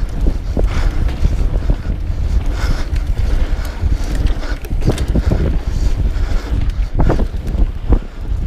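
Wind noise on a chest-mounted camera's microphone as a mountain bike descends a dirt singletrack: a steady low rumble, broken by scattered knocks and rattles from the bike over bumps, several of them in the second half.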